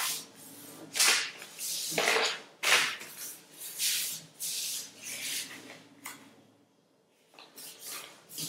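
A sheet of paper being folded and creased by hand on a tabletop: a series of rustles and swishes about a second apart, with a short lull about six seconds in before the rustling starts again.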